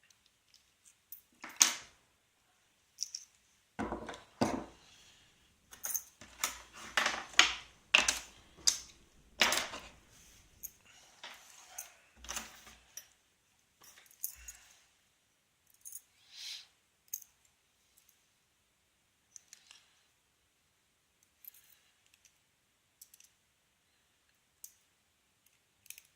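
Metal clicks and rattles from an American Lock 5200 series padlock being handled and taken apart with small tools, busiest in the first half and then sparser.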